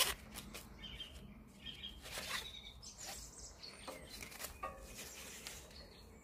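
Nylon webbing strap rustling and sliding as hands thread it through a plastic side-release buckle, in a run of irregular scrapes and rubs. A few short bird chirps sound in the background.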